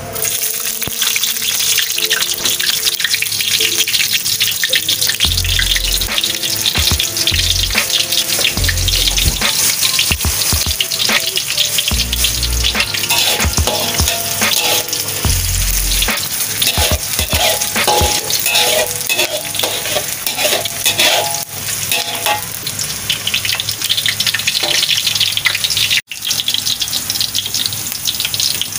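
Sliced onion and shallots sizzling and crackling steadily in hot cooking oil in a metal wok as they fry, stirred with a spatula.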